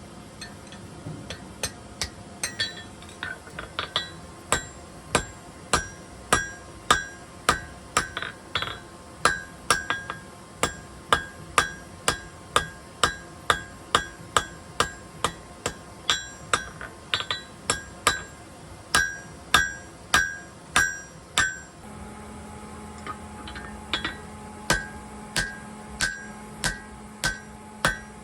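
Hand hammer forging steel on a Hay-Budden anvil: a steady run of blows, about two a second, each with a short bright ring. A steady low hum comes in late on.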